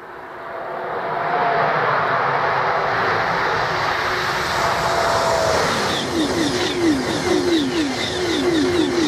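High-speed electric trains on the line: a rising rush of noise as a train comes out of the tunnel and draws near. Then, from about six seconds in, a Eurostar train passes close at speed, its wheelsets beating in a quick rhythm of about four a second.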